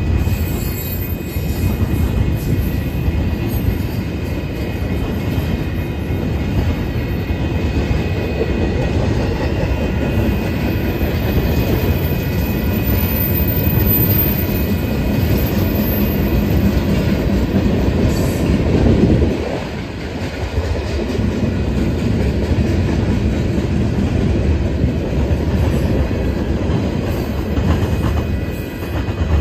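Union Pacific freight cars (double-stack well cars, then tank cars) rolling past close by: a steady rumble of steel wheels on the rails with a faint high, steady wheel squeal. The rumble drops briefly about two-thirds of the way through.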